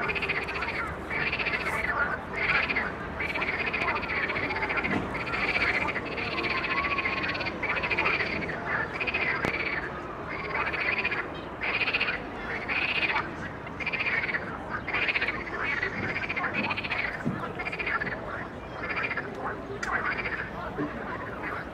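A chorus of frogs croaking from the weedy river shallows, many overlapping calls repeating about once a second.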